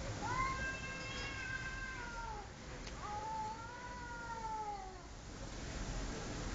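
Tomcats caterwauling in a standoff: two long, wavering yowls of about two seconds each, the second starting about three seconds in.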